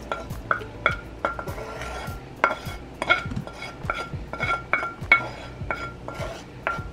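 A skillet and wooden spatula knocking against a stainless steel mixing bowl as sautéed diced bell peppers are scraped into it: repeated clinks, two or three a second, each leaving the metal bowl ringing briefly.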